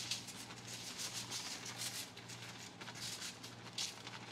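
Granulated sugar poured from a plastic bag onto aluminium foil, the granules hissing and rustling on the foil as the bag crinkles. A low steady hum runs underneath.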